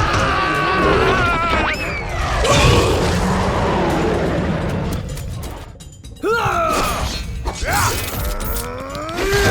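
Background soundtrack music mixed with crash and impact sound effects, then several swooping, gliding tones in the second half.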